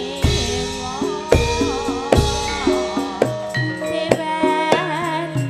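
Javanese gamelan music for tayub dancing: held metallophone notes and sharp hand-drum strokes, with a female singer's wavering, ornamented line amplified through a microphone.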